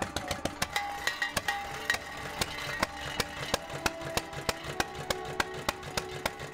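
Antique flywheel engine running the can crusher's pumpjack, with a rapid, even knocking of about four to five beats a second, under background music.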